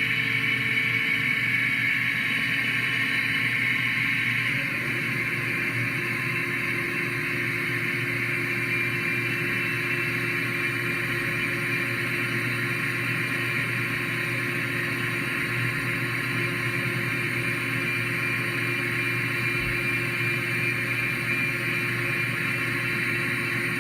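Hardinge GT 27 gang-tool CNC lathe running through its program: a steady machine hum with a high whine, its tone shifting about four and a half seconds in and then holding steady.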